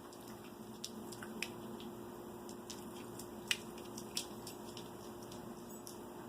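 Frozen green beans being bitten and chewed: a few scattered sharp crunches, the loudest about three and a half seconds in, over a steady low hum.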